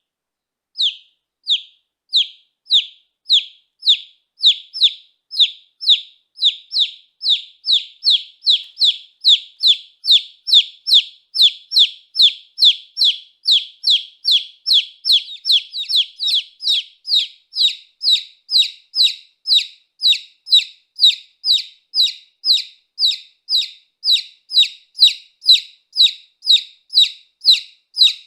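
A domestic chick peeping over and over, each peep a short, high note falling in pitch. The peeps come about every second at first and quicken to two or three a second.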